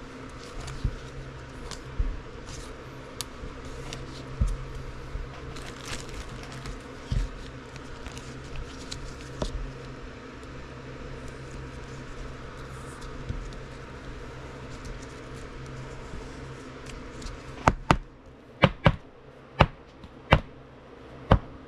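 Trading cards being handled, with light rustles and scattered soft clicks over a steady low hum; the hum drops out about three-quarters of the way through, followed by a run of about seven sharp clicks or taps.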